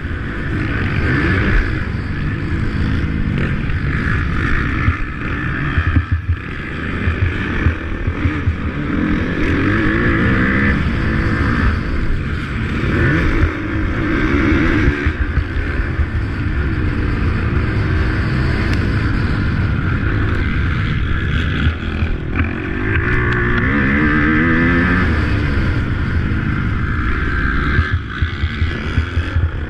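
Motocross bikes racing, several engines revving up and down at once, their pitch rising and falling as the riders throttle on and off. The sound swells somewhat louder for a few seconds past the middle.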